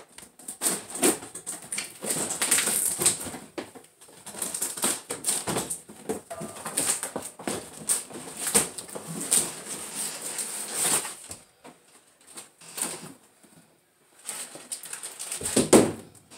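Cardboard packaging being handled and opened, with plastic wrapping rustling and crinkling in irregular bursts. This eases off after about eleven seconds, and a single heavier knock comes near the end.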